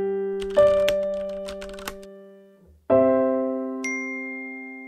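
Intro jingle music: struck keyboard chords that ring on and slowly fade, with a run of fine crackling clicks over the first two seconds. A fresh chord lands about three seconds in, and a high ringing note follows a second later.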